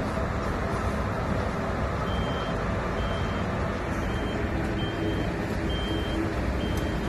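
Articulated lorry reversing: its diesel engine running steadily while the reversing alarm gives a short high beep about once a second, starting about two seconds in.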